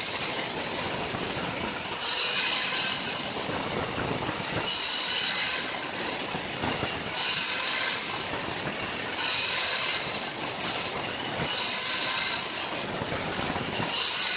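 Handheld electric angle grinder grinding into a block of andesite (batu candi) to hollow out a stone mortar. A steady motor whine and gritty grinding, with a harsher high screech that swells about every two seconds.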